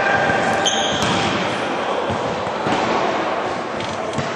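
Futsal play on an indoor court: the ball bouncing and being struck, with players' voices in the background. A short high-pitched tone sounds a little under a second in.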